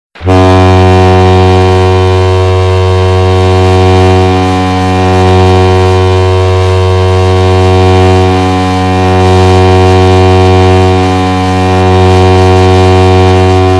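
Lake Erie Monsters' hockey goal horn blowing one long, low, continuous blast that starts abruptly at the very beginning, its loudness swelling and easing every few seconds.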